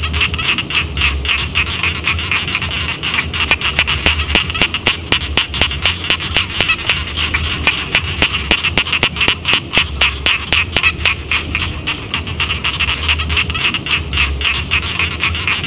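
Chorus of rice-paddy frogs calling, many rapid short croaks overlapping into a dense, continuous clatter.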